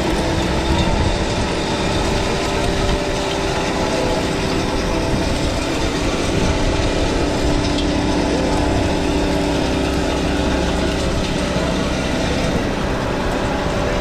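Caterpillar 289D compact track loader's diesel engine and high-flow hydraulics running steadily under load, a constant drone, while the hydraulic Power Box Rake's rotor churns through the soil.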